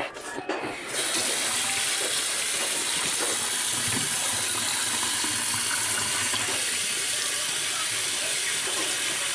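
Kitchen faucet turned on about a second in, then running steadily into a stainless steel sink as hands are rinsed under the stream.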